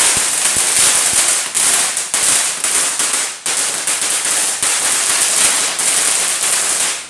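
An 80 cm Magic Whip firework burning, giving off a loud, dense crackling and hissing. The crackle dips briefly about three seconds in, then picks up again and cuts off suddenly at the end.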